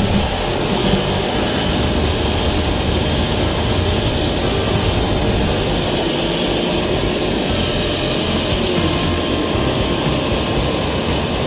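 Pressure washer running steadily, its high-pressure jet of water blasting the concrete walkway to strip off the grime.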